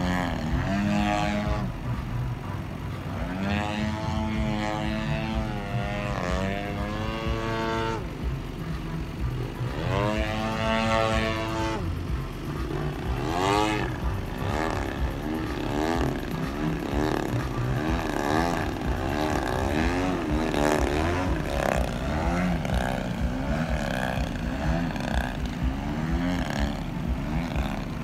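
Model aerobatic plane's motor and propeller buzzing, its pitch rising and falling again and again as the throttle is worked through 3D manoeuvres, with long swells early on and quicker surges about once a second in the second half.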